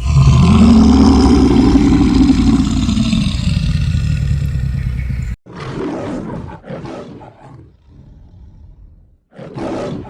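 A large wild animal roaring: one long, deep roar of about five seconds that rises and then falls in pitch and cuts off sharply, followed by three shorter, quieter calls, the last near the end.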